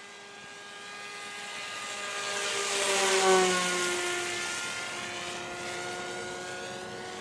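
Bixler 2 RC plane's electric motor and pusher propeller whining as the plane makes a low pass. It grows louder to a peak about three seconds in, and its pitch drops as it goes by.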